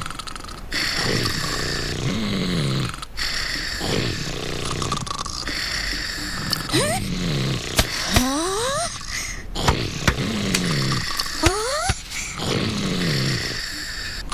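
Cartoon cats snoring in a slow repeating rhythm, each snore falling in pitch. In the middle come three rising whistles and a few sharp clicks.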